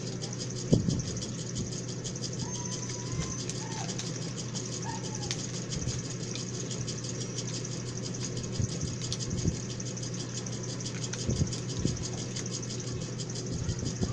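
Paper food wrapper crinkling and rustling as it is handled, with a few soft knocks, over a steady background hum.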